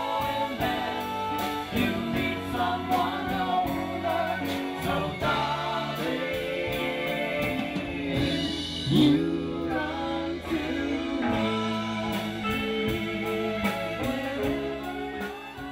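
A song with singing over a band and a steady drum beat, fading down at the end.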